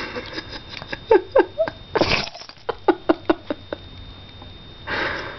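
A pet sneezing: one sharp sneeze about two seconds in, followed by a quick run of short snorts and sniffs, and another sneeze-like burst near the end.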